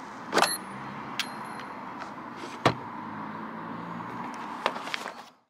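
A handful of sharp clicks from a screwdriver working at a car door's manual window winder handle, a second or more apart, over a steady background hiss. The sound cuts off shortly before the end.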